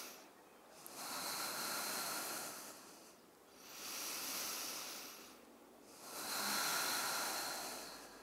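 A woman breathing slowly and audibly while holding downward-facing dog: three long, even breaths of about two seconds each, with short pauses between.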